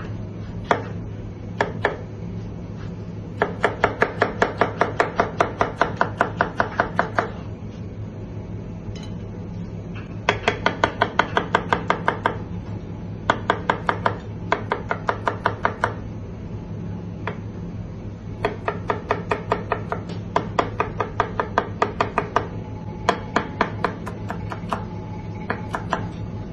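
Kitchen knife chopping on a plastic cutting board, slicing tomato, garlic and parsley: several runs of quick, even strokes, about five a second, with short pauses between runs.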